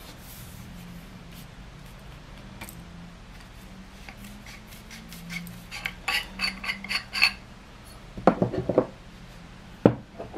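Metal tube sections of a survival stick clinking together as they are handled: a quick run of sharp ringing clinks about halfway through, then a short cluster of duller knocks and a single knock near the end.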